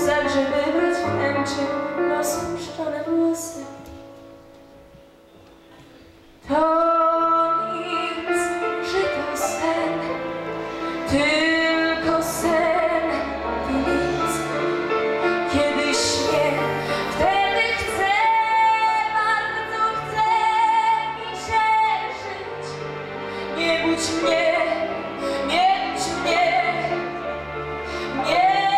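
Teenage girl singing solo into a microphone over instrumental accompaniment. The song fades to a quiet pause about four seconds in, then voice and music come back in loudly about six and a half seconds in and carry on.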